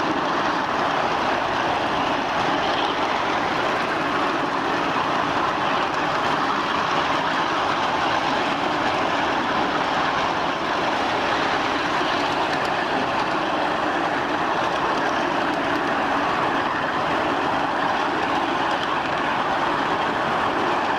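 1/8-scale ride-on miniature railway train rolling along its track, with steady wheel-on-rail running noise.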